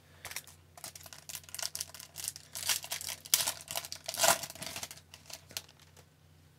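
A foil trading-card pack wrapper is crinkled and torn open by hand: a rapid, irregular run of crackles, loudest a little past the middle, that dies away shortly before the end.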